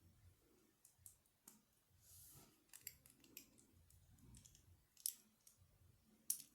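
LEGO bricks being handled and pressed together: scattered faint plastic clicks and snaps, with two sharper clicks near the end.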